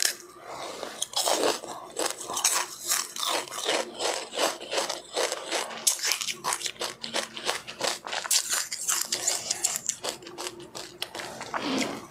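Close-up chewing of sesame seeds with passionfruit, a dense run of rapid crunches and crackles.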